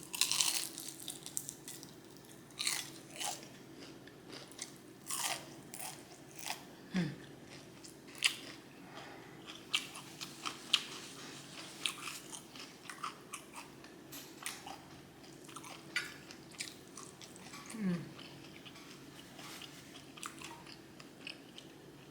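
Close-up biting and chewing of crispy Popeyes fried chicken skin: wet chewing with irregular crisp crunches every second or so, the loudest burst of crunching at the first bite.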